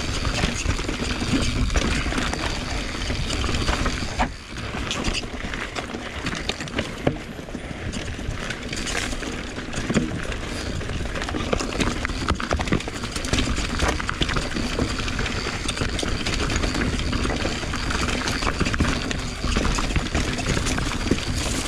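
Mountain bike riding over a rough dirt trail: the bike rattling over bumps with many short knocks and clicks, over a steady low rumble of tyre and wind noise.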